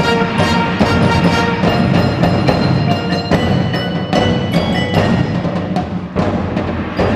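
An indoor winds ensemble playing, sustained wind-instrument tones under frequent sharp percussion strikes.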